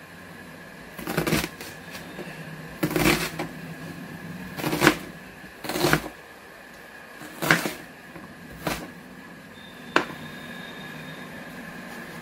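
Kitchen knife chopping red onion into rough pieces on a plastic cutting board: a sharp knock every second or two, seven in all.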